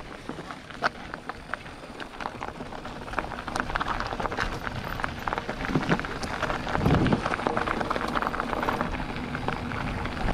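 Mountain bike tyres rolling over dry, loose dirt and gravel, a dense crackle with many sharp clicks of flicked stones and the bike rattling, and a heavier thud about seven seconds in.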